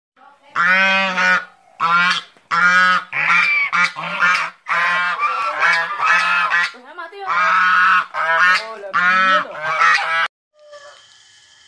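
Domestic geese honking: a run of about a dozen loud, harsh honks in quick succession that stops about ten seconds in.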